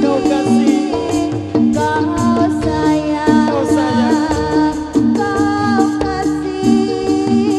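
Live jathilan dance accompaniment: Javanese ensemble music with a repeating pattern of pitched percussion notes, drum strokes and a singing voice over it.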